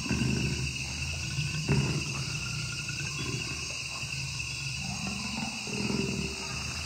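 Wild-habitat animal soundscape recording: a steady high insect chorus with low, rough calls from larger animals swelling over it, once at the start, again near two seconds in and again around five to six seconds.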